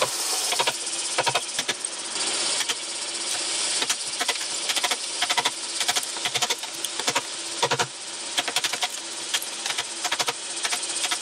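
Japanese chisel being driven into a timber beam with quick hammer taps, coming in short runs of strikes every second or two, chopping out a dovetail housing.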